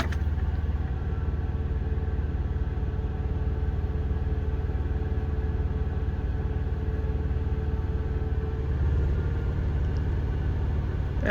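Steady low rumble with a faint hum, unchanging throughout and with no clicks or handling sounds over it.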